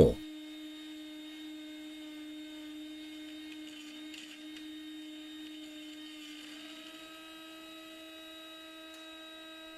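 Proxxon MF 70 micro milling machine's spindle motor running at a steady speed: a constant, fairly quiet hum-like whine with overtones, its pitch shifting slightly about two thirds of the way through.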